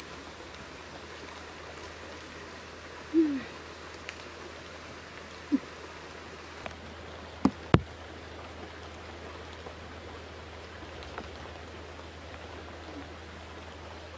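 Steady hiss of water, with a few short, sudden knocks and thumps over it, the loudest a deep thump about eight seconds in.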